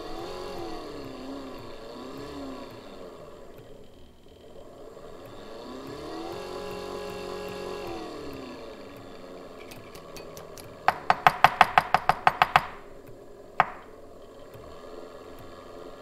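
DC gear motor whining, its pitch rising and falling as the speed potentiometer on its controller board is turned up and down: the old speed pot from the sawmill's drive is being tested and the motor follows it. Later a quick run of about a dozen sharp clicks, the loudest sound, then one more click.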